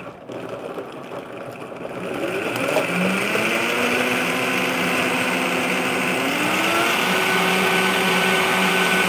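Countertop blender motor blending a thick sauce with chopped bacon, its speed dial turned up in steps. The motor whine climbs in pitch about three seconds in and again near seven seconds, then holds at high speed.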